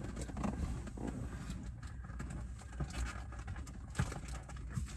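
Scattered rustling and light knocks as someone twists round in a car seat and reaches into the back seat, over a steady low hum.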